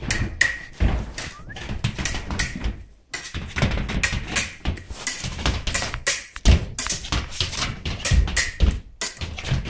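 Irregular tapping and knocking, several sharp hits a second, with a few heavier thumps and a short lull about three seconds in.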